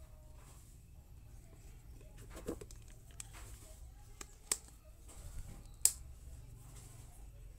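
Handling noise from a smartphone held and turned in the hands: a few sharp clicks and taps, the loudest about six seconds in, over a low steady hum.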